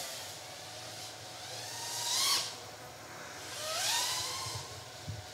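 FPV quadcopter's motors and propellers whining as it flies, swelling twice, about two seconds in and again near four seconds, with the pitch gliding up as the throttle rises.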